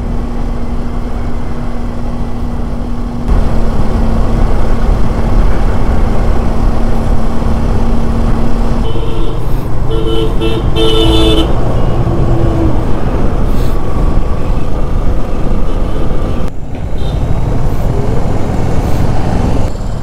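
Wind and road noise from a moving motorcycle, growing louder a few seconds in. About halfway through, a vehicle horn toots several times in short blasts.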